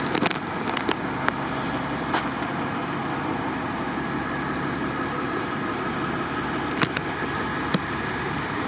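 Steady din of vehicle engines running, with a few sharp clicks and knocks about a second in and again near the end.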